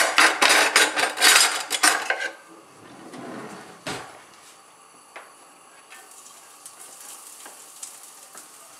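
Metal kitchen utensils clattering loudly for about two seconds as a spatula is taken out, then a single knock. From about six seconds in, a faint sizzle starts as diced garlic is scraped off a cutting board into the hot frying pan.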